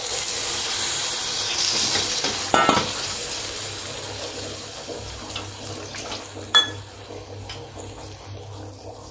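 Spiced masala water poured into a hot pan of oil-fried stuffed brinjals, sizzling loudly at first and fading as the liquid settles and is stirred in, with a couple of sharp metal clinks of utensils against the pan.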